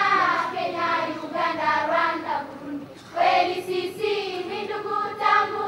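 Voices singing a melody in two phrases, with a short break about three seconds in.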